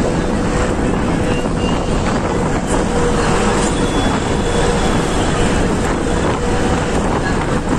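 Steady road and engine noise inside a moving vehicle at highway speed, with a faint steady hum.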